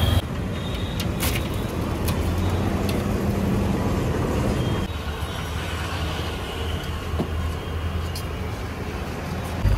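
Steady street background noise with a low traffic hum and a few faint clicks.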